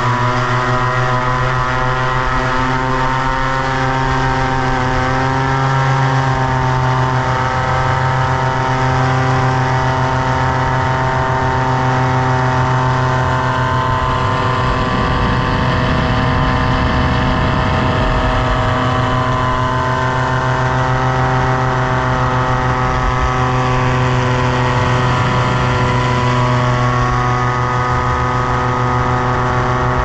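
Tandem paramotor trike's engine and caged propeller running steadily at high power for takeoff and climb: a loud, even drone whose pitch barely changes.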